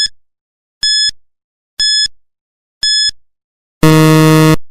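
Quiz countdown timer sound effect: four short, high beeps once a second, then a longer, lower buzzer near the end, the loudest sound, marking time up.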